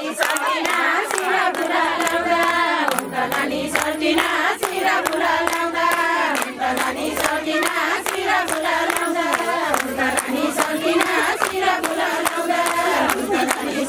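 A group of women singing a Ratyauli folk song together, with the crowd clapping in a steady rhythm.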